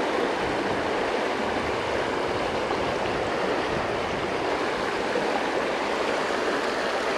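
A small creek running over shallow riffles: a steady, even rushing of water with no breaks.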